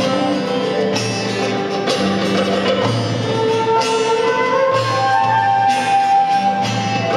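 Live folk-rock band playing an instrumental break between sung verses: bass notes and a regular percussive beat with tambourine-like jingles, and a held melody line coming in about halfway through.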